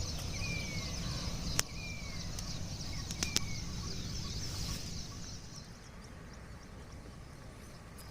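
Outdoor ambience with a small bird repeating a short falling whistle four times, about every one and a half seconds, over a high, busy chatter of other birds. A low rumble under it fades out about five seconds in, and there are a couple of sharp clicks.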